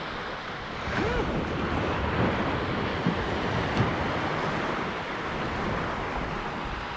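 Surf breaking on the shore with wind buffeting the microphone, and a few short strained voice sounds in the first half.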